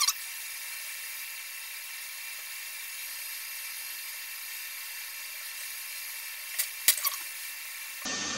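Hot-air rework gun blowing steadily at full airflow, a high hiss with a faint whine, while heating the SIM-slot solder on a phone logic board. A couple of sharp metal ticks come near the end, and the hiss changes abruptly to a lower rush just before the end.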